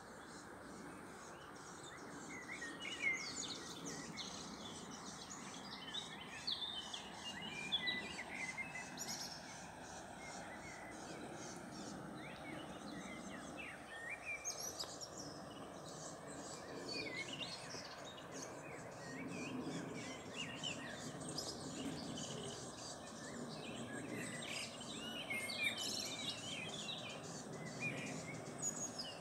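Small birds chirping and singing in many short calls throughout, over the steady rush of flowing canal water.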